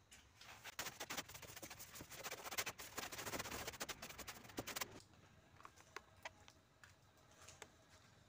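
A long-handled cobweb brush scraping and sweeping against corrugated metal roof sheets and rafters, a rapid scratchy brushing that runs for about five seconds and then stops abruptly. After that only a few faint ticks.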